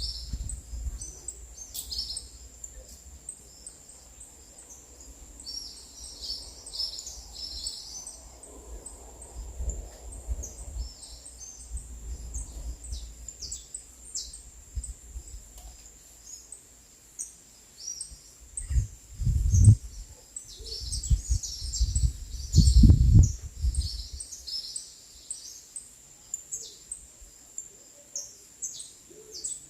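Small birds chirping and singing in many quick, high calls, over a steady thin high tone. Two loud low rumbles, about 19 and 23 seconds in, are the loudest sounds.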